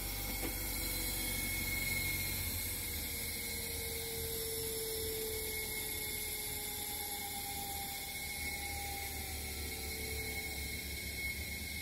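GEC electric motor running quietly, a faint steady low hum with a thin whine that drifts slightly lower in pitch now and then.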